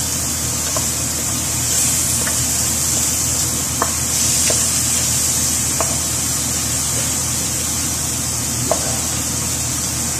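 Squid frying with onions and tomatoes in a stainless steel pan, giving a steady sizzling hiss. A few light knocks sound as a wooden spatula stirs against the pan.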